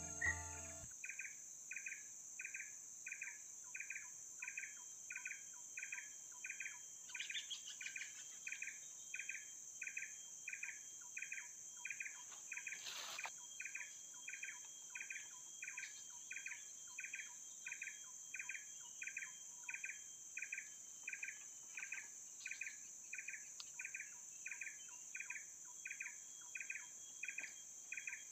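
Insects of a tropical riverbank calling: a steady high-pitched drone, with a short chirping note repeated evenly about twice a second. There is a faint tap about 13 seconds in.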